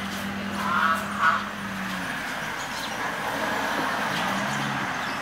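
A car's engine running on the road, a steady low hum that fades out about two seconds in and comes back briefly near four seconds; a crow caws once about a second in.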